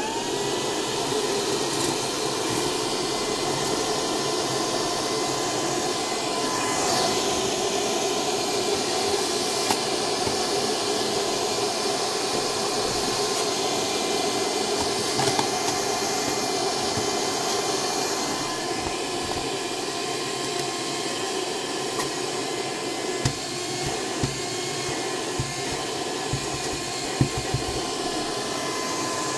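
Homend Dustrider 1217 handheld vacuum cleaner running at full power: a steady high motor whine over a strong rush of air. The whine settles to its pitch as it comes up to speed at the start, and a few light clicks come through in the second half.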